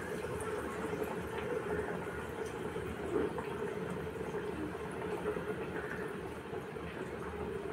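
Hot oil sizzling and bubbling steadily in a kadhai as chana dal vadas deep-fry.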